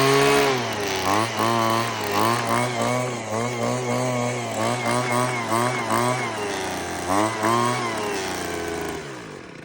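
Homelite Mighty Lite two-stroke leaf blower running just after a choke start, its revs rising and falling again and again. The engine dies away near the end.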